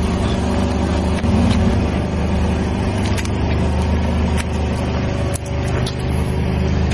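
Car engine running steadily close by as the tyre rolls slowly over tomatoes, with a few sharp snaps as they are squashed.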